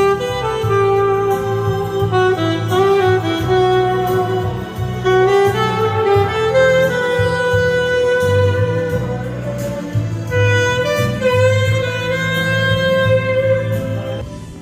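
Saxophone playing a melody of held, sliding notes over a backing track with a bass line.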